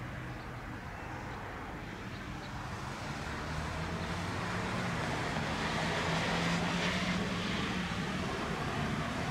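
Diesel engines of two EMD locomotives, a GP15-1 leading and a GP38-2, running light at low speed: a steady low drone that grows louder from about three seconds in as they approach.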